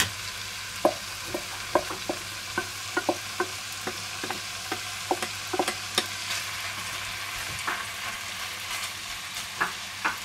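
Minced meat sizzling steadily as it browns in a hot pot, with frequent light knocks and scrapes from a wooden spatula stirring and breaking it up.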